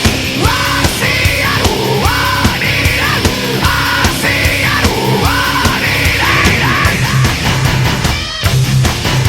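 Heavy metal music with vocals over a fast, steady drum beat.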